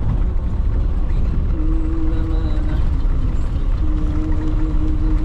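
Roadside traffic: a steady, loud low rumble of passing vehicles. A steady droning tone rises above it twice, each time for about a second.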